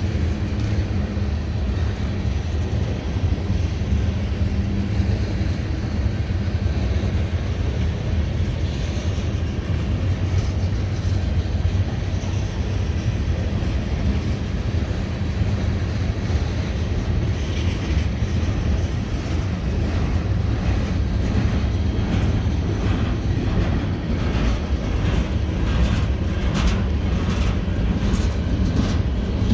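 Freight train cars rolling slowly past with a steady low rumble of wheels on rail. From about halfway through, wheels click in a regular rhythm over rail joints.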